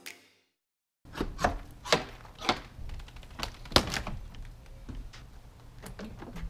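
Irregular knocks and thunks of gear being handled in a bus's open plumbing compartment, a coiled water hose among it, over a low steady rumble.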